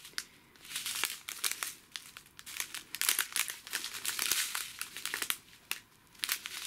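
Small clear plastic zip bags of diamond-painting drills crinkling as they are handled and swapped one for the next, in irregular bursts with a few sharp clicks and short lulls.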